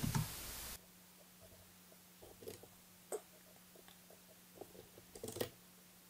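Faint computer keyboard keystrokes: a scattered handful of light clicks over a few seconds as a terminal command is typed.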